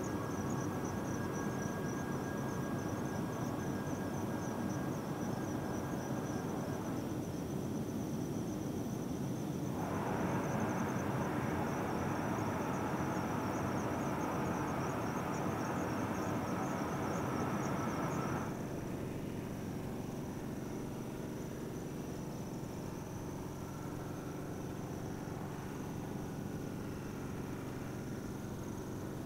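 Distant rushing noise of Starship SN8's liquid-oxygen and methane tanks venting, which grows louder about ten seconds in and drops off abruptly a few seconds past halfway. Night insects chirp over it in a fast, high, pulsing trill.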